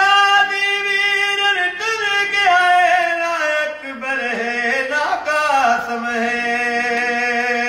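An elderly man sings a noha, a devotional lament, with no accompaniment. He holds long notes that slide downward in pitch, in two phrases; the second begins about five seconds in and settles on a low held note.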